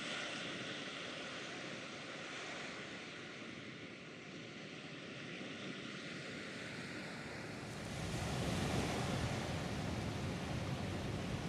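Wind blowing across the microphone, a steady rushing that turns into a heavier, low buffeting gust about eight seconds in.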